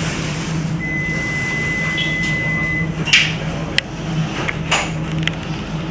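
Inside a Toulouse tram car: a steady electrical hum, with a single held electronic beep of about two seconds, then a few sharp clunks, the tram's door-closing warning and the doors shutting.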